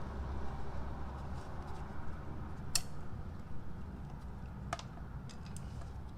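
A few light clicks and taps from handling the old and new oil filter cartridges, two of them sharper, over a faint low hum.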